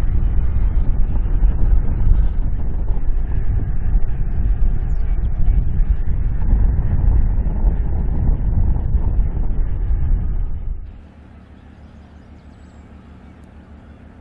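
The tugboat Stephan M. Asher's diesel engine runs with a loud, rough, low rumble as it manoeuvres. About eleven seconds in the rumble cuts off abruptly, leaving a much quieter steady low hum.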